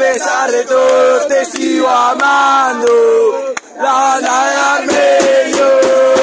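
A group of football supporters chanting a terrace song together in loud unison, with big bass drums (bombos) beating along, their strokes thickest in the last second or so.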